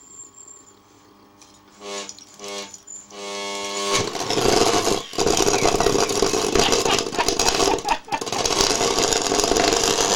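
Vacuum cleaner motor switched on in a few short humming bursts, then running loud and harsh at full power from about four seconds in, dipping briefly twice.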